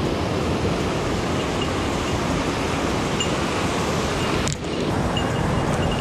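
Mountain stream rushing over rocks and small cascades: a steady, loud wash of water. It dips briefly about four and a half seconds in, then carries on.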